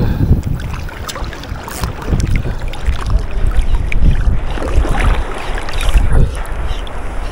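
Strong wind buffeting the microphone, a loud rumbling gusty noise that swells and eases, with a few faint ticks.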